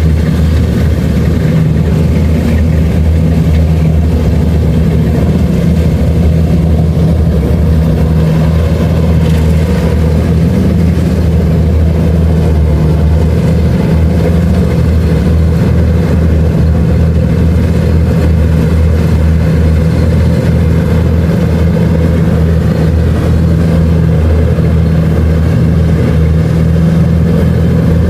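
Kubota DC-70 Plus rice combine harvester running steadily, its diesel engine holding a constant low drone.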